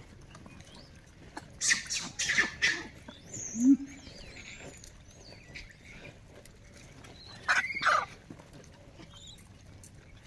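Gray langurs squabbling over a tub of drinking water: a burst of shrill squeals about two seconds in, a short low grunt just before four seconds, and another shrill squealing burst near eight seconds.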